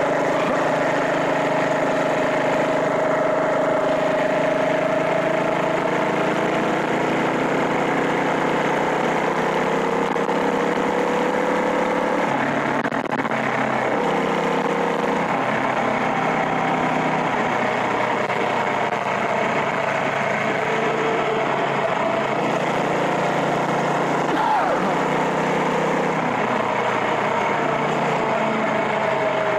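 Small engine of a motorized bicycle running under way, its pitch drifting slowly up and down and shifting in steps with the throttle, over a steady rush of wind and road noise.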